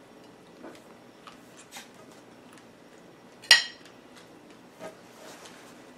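A table knife set down on a plate: one sharp clink about three and a half seconds in, with a few faint small clicks of handling around it.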